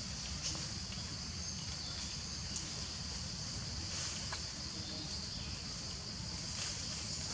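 Steady high-pitched drone of an insect chorus, with a low rumble underneath and a few faint ticks.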